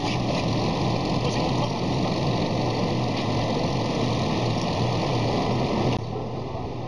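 Truck-mounted loader crane's engine running steadily with a constant low hum as the crane lifts a heavy load; the sound drops a little in level near the end.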